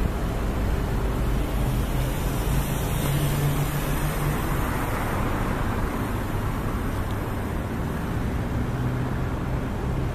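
Road traffic going by on a city street, a steady rumble with one vehicle passing louder a few seconds in; wind buffets the phone's microphone.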